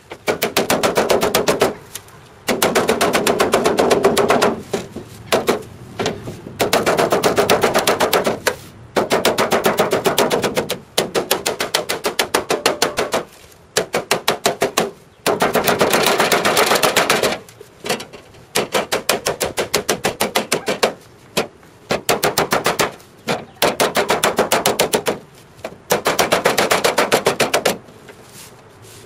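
Rapid, evenly spaced hammering blows on metal work, coming in about a dozen runs of one to three seconds with short breaks between them.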